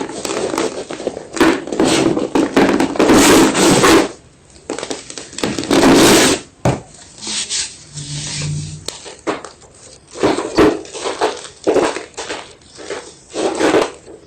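Fresh white gym chalk being crunched and crushed: long dense crunching bursts in the first four seconds and again around six seconds, a quieter stretch, then a run of short separate crunches in the last few seconds.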